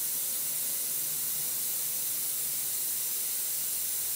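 Airbrush spraying cleaner through with a steady hiss of compressed air, flushing the last of the metallic paint out of it.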